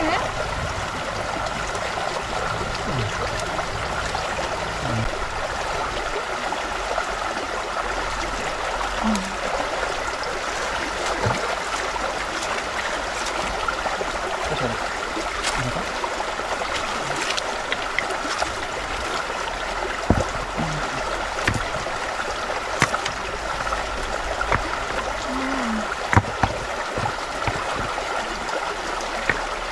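Shallow stream running steadily over rocks, with a few short clicks and knocks scattered through it.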